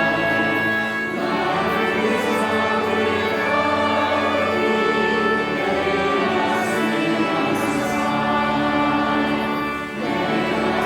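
Church music: a choir singing a hymn-like piece over sustained accompaniment, with short breaks between phrases about a second in and near the end.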